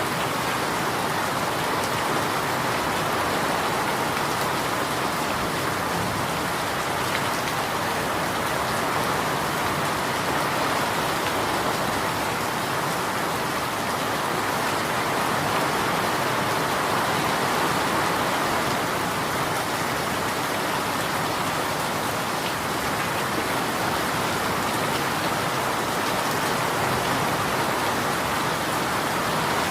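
Steady rain falling on a surface, an even continuous hiss of drops with no breaks.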